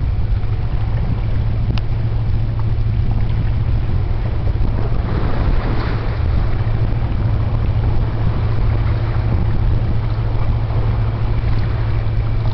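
Steady low engine drone of the passing tug-barge Dorothy Ann/Pathfinder, with wind noise on the microphone.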